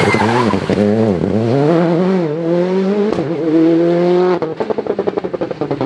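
Citroën C3 R5 rally car's 1.6-litre turbocharged four-cylinder engine on and off the throttle through a hairpin, then accelerating hard away, its pitch rising steadily with a quick gear change about three seconds in. Near the end it goes off the throttle into a rapid run of exhaust pops and crackles.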